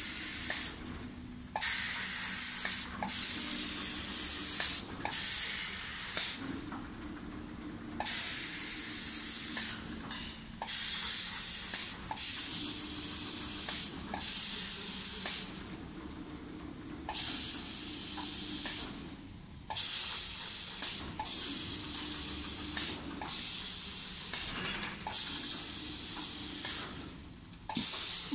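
Automatic spray-painting machine's spray gun hissing in bursts of one to three seconds, cutting on and off with short breaks as it passes over the door panels, over a faint low hum from the machine.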